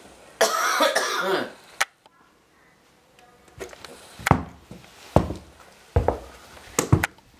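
A horse's hooves stepping on a wooden porch deck, four heavy steps in the second half. These come after a loud breathy blow near the start.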